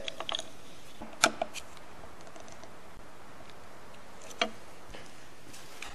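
Two sharp clicks, one about a second in and one about four and a half seconds in, with a few fainter ticks: small metal-on-wood taps as slotted flathead screws are set into countersunk holes in a hardwood strip.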